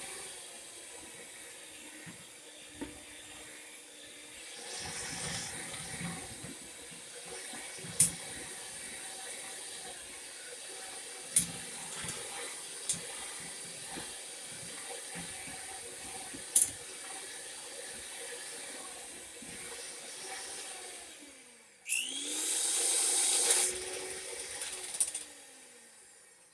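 Electric mixer blending flour and dry ingredients into cookie dough, running steadily with occasional sharp clicks of the beaters against the bowl. Near the end it stops briefly, then spins up to a louder, higher speed and winds down again.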